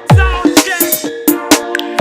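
Electronic dance-style music playing loud. A deep kick drum drops in pitch on each hit, under sharp clap and hi-hat hits, steady held synth chords, and a sliding lead melody.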